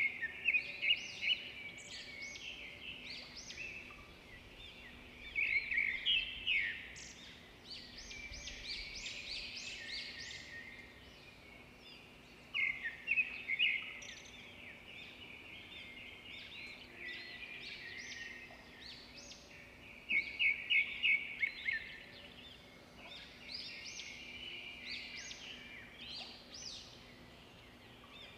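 Small birds chirping in repeated bursts of quick high calls every few seconds, over a faint steady background.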